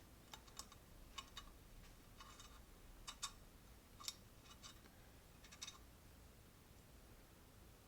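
Faint, light metallic clicks and ticks, irregular, of a 3 mm Allen key turning small screws into a metal rifle rail; they stop about six seconds in.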